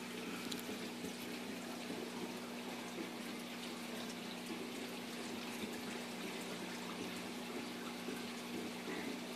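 Reef aquarium's water circulation running: a steady rush of moving water over a low, even pump hum, with faint scattered ticks.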